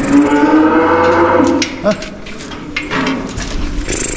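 A bovine mooing once, one long call that rises at its start and lasts about a second and a half. It is followed by a few scattered knocks and clatter.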